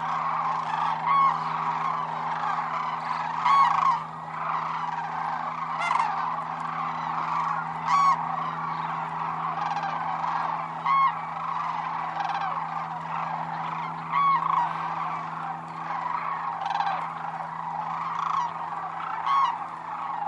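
A large flock of sandhill cranes calling continuously, a dense chorus of overlapping calls, with single louder calls from nearer birds standing out every two to three seconds.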